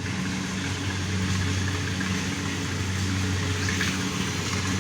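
An engine idling steadily, an even low hum.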